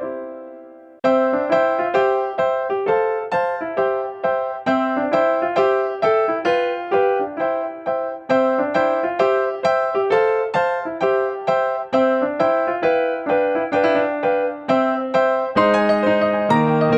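Background music: a quick, bouncy tune of short repeated notes, with a brief break about a second in and lower notes joining near the end.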